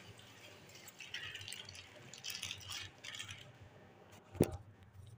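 Light rattling and clinking of small hard objects being handled, with one sharp knock about four seconds in.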